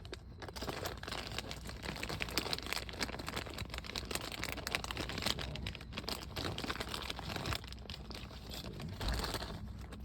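Continuous crinkling, rustling handling noise with many small clicks close to the microphone.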